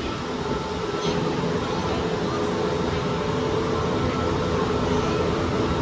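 Steady hum and rumble of the Disney Skyliner gondola lift in motion, slowly getting a little louder.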